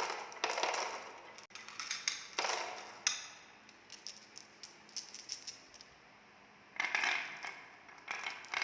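Balls rolling and clattering down a handmade wooden marble run: bursts of quick clicks and knocks as they hit and bounce along the wooden track, thinning out in the middle and clustering again about seven seconds in.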